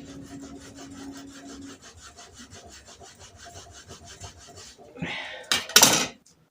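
Skin being scraped off a frozen piece of fresh ginger root: quick rhythmic scraping strokes, about five a second, with two louder rasping scrapes near the end.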